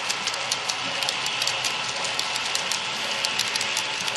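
HO-scale model freight train of hopper cars rolling along the track, with a rapid, irregular clicking of wheels on rail over a steady hiss.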